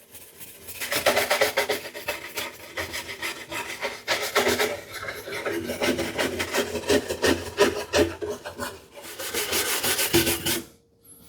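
Shoe brush rubbed briskly back and forth over a shellac-and-paste-wax finish on wood, buffing the wax to a sheen. Rapid strokes start about a second in and stop shortly before the end.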